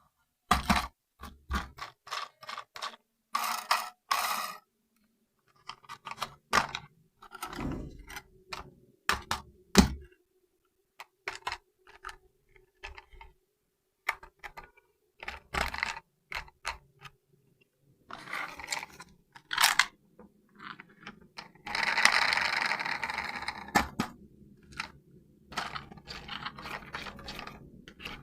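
Clicks, knocks and scrapes of a toy and its packaging being handled, with a longer rustle about three-quarters of the way through.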